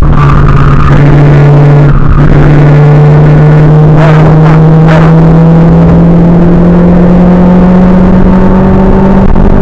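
Renault Clio 182's 2.0-litre four-cylinder engine running loud under hard acceleration on track, heard from inside the cabin. Its pitch climbs slowly, with a short break about two seconds in like a gear change.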